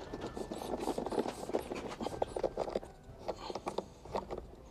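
Ratchet clicking in quick, irregular runs while undoing an 8 mm bolt, thinning to scattered clicks about three seconds in.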